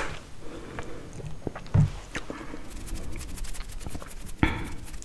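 A couple of low tabletop thumps, then from about halfway fingers brushing and scratching over a furry microphone windscreen as a dense, crisp crackling, with one more soft thump near the end.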